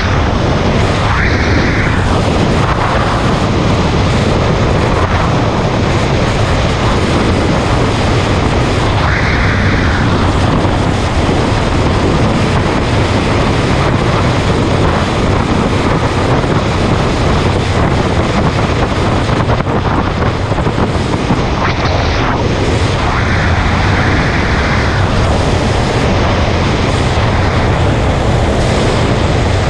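Heavy, steady wind rush on the microphone of a camera riding on a moving motorcycle at road speed, with the motorcycle's engine and tyre noise running underneath.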